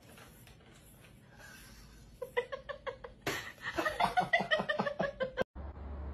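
A person laughing hard in quick repeated bursts, starting about two seconds in and cutting off suddenly near the end. A steady low hum follows.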